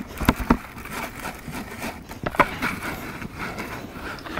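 Damp groundbait being rubbed by hand through a riddle (bait sieve) into a bucket: a gritty rustle and scrape, with a few sharp knocks.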